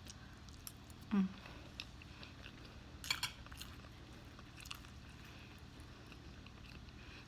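Someone chewing a mouthful of buttermilk waffle, with soft wet mouth clicks and smacks. A short hummed vocal sound falls in pitch about a second in, and a few sharper smacks come around three seconds in.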